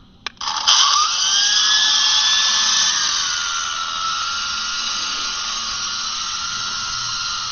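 A click, then the small electric motors of a toy coaxial RC helicopter spin up with a rising whine and run on as a steady high-pitched whine while it flies; the pitch settles a little lower about three seconds in.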